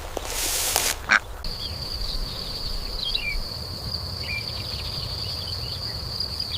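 Rustling noise for about the first second, then a steady high insect trill with a few short bird chirps over it.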